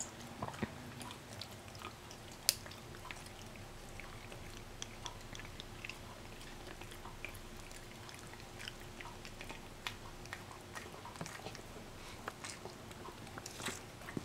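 British Shorthair cat biting and chewing a treat held in a hand: faint, irregular small clicks of its teeth and mouth.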